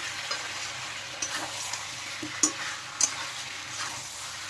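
Flat metal spatula stirring chicken and potato pieces in thick spice paste in a metal kadai, with a steady sizzle of frying and several sharp scrapes and clinks of the spatula against the pan. The chicken is being fried down in the masala (kosha/bhuna stage) until the oil separates.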